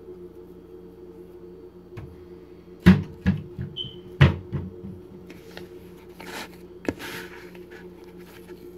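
Hands breaking up a bowl of risen dough, with soft rustling and handling noises. Two sharp knocks, about three and four seconds in, each followed by a few lighter clicks, over a steady low hum.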